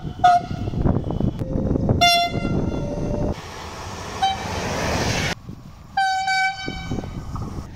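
Passenger train horns blowing several blasts over the rumble of trains passing on the track. A short toot comes right at the start, a longer blast about two seconds in, a brief one about four seconds in, and a blast of about a second near the end.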